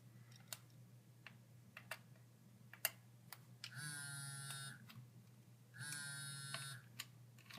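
Twice, a buzz of about a second from a small electric device, among faint scattered clicks of tiny screws and parts being handled.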